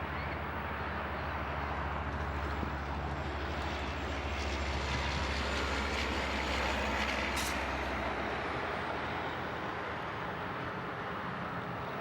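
Steady rumble of a passing vehicle, with a low engine drone that drops away about two-thirds of the way through and a few faint clicks around the middle.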